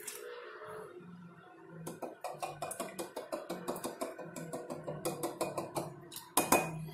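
Small bottle being swirled in a glass jar of hot water, knocking lightly against the jar's glass about four to five times a second, with a louder clink near the end.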